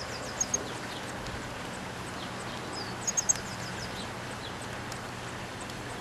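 Small songbirds chirping at a nest: scattered short, high chirps and slurred calls, with a pair of louder chirps near the start and a quick run of three sharp, high notes about three seconds in, over a steady background noise.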